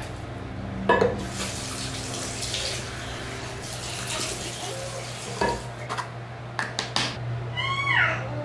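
Water running and splashing in a bathroom sink as hands wash and rinse a face, with a few sharp knocks and clatters. Near the end, a brief high-pitched sound rises and falls a few times.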